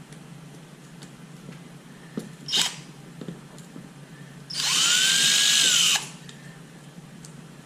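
Electric drill running in two goes: a brief blip, then about a second and a half of steady running, its whine rising as it spins up and dropping as it stops.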